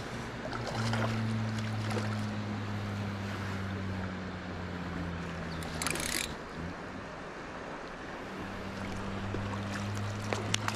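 Creek water running, under a steady low hum that drops out for a couple of seconds in the middle. A brief splash-like burst comes about six seconds in, and a few sharp clicks sound near the end, as a hooked trout is played toward the net.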